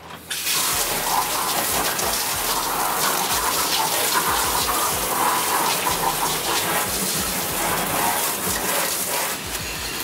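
Handheld shower spraying very hot water over a wire bird cage in a bathtub: a steady rush and splash of running water that starts almost at once.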